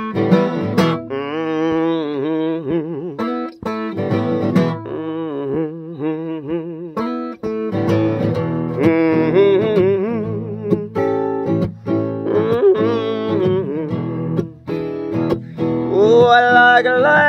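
Steel-string acoustic guitar playing a blues in the key of E, strummed and picked steadily in an instrumental break.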